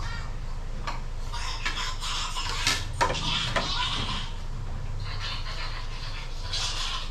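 Ceramic plates and a metal ladle clinking as dishes are handled, with a few sharp knocks, the loudest about three seconds in, as a plate is set down on a glass tabletop.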